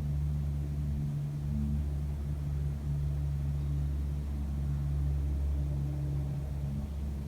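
A steady low droning hum made of a few stacked pitched layers that waver slightly. It is the unidentified night-time hum heard from the street, which the recorder could not trace to a source.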